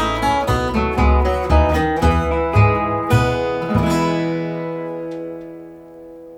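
Acoustic guitar picking the closing phrase of a song, then a final chord that rings and slowly fades from about four seconds in.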